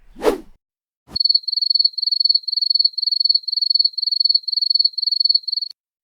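Stock 'awkward silence' sound effect: crickets chirping steadily in repeated high trills, about two to three groups a second, after a short whoosh at the start.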